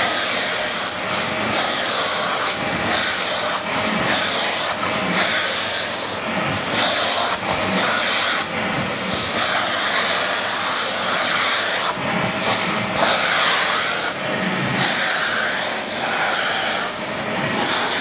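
Vacuum cleaner running steadily, with a constant hum under a loud hiss whose tone shifts every second or so as the nozzle is drawn over a cat's fur.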